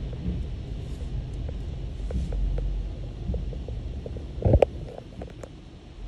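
Low, uneven rumble of an idling car heard from inside its cabin, with one sharp thump about four and a half seconds in and a few faint clicks after it.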